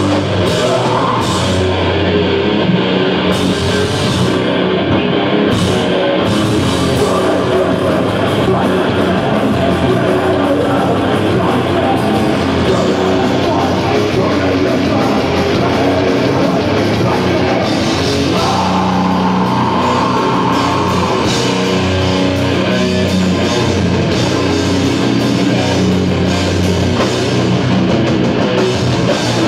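Heavy metal band playing live and loud, with distorted electric guitar, bass guitar and drum kit.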